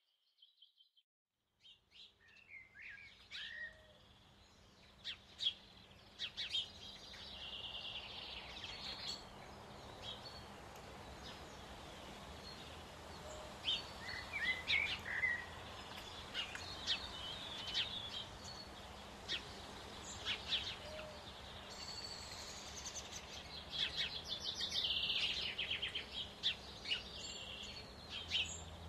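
Birdsong: several small birds chirping and trilling in quick high-pitched notes over a steady outdoor hiss, starting about two seconds in after a moment of silence.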